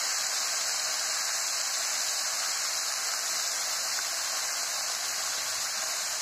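Steady hiss of chopped spinach sizzling in a hot pan.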